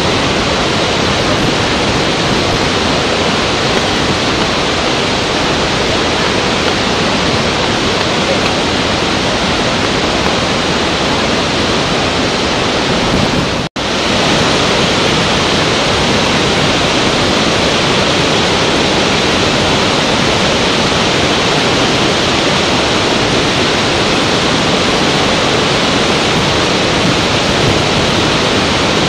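Large waterfall and rapids rushing, a loud, steady wash of water noise that cuts out for an instant about halfway through.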